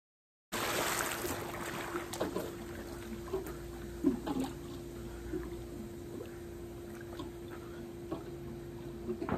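Pool water splashing as a swimmer enters, loudest right at the start, then gentle sloshing and small splashes as he swims. A steady hum runs underneath.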